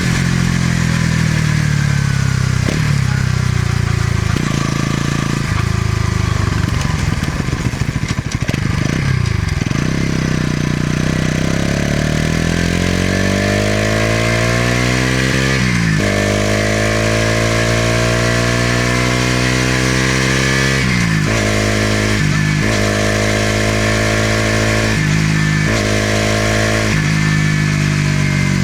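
Bajaj Pulsar NS200's single-cylinder engine and exhaust under way. The revs fall for the first several seconds and turn rough, then climb in long rising sweeps, broken by brief dips as the rider changes gear and comes off the throttle.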